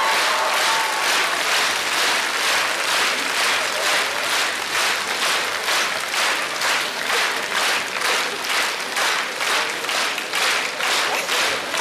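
Large theatre audience applauding after a comedy routine. About two seconds in, the clapping falls into time, with the whole hall clapping together at roughly one and a half claps a second.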